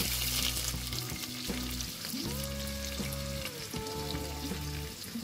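Sliced red onions sizzling as they fry in hot oil in a nonstick pot, the hiss loudest just as they go in and then settling to a steady sizzle.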